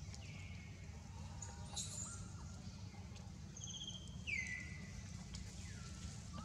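High-pitched animal calls over a steady low rumble: one near the start and a louder one about four seconds in, each sliding down in pitch and then held briefly, with a short rapid chattering call just before the second.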